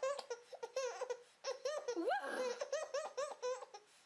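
Baby laughing in quick repeated bursts, with a short break about a second and a half in and a long high rise and fall about two seconds in.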